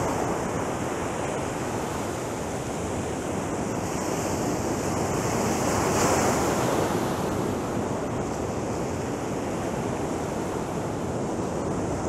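Mediterranean surf washing onto a beach, a steady rush of breaking waves that swells louder about halfway through as a bigger wave breaks, with some wind on the microphone.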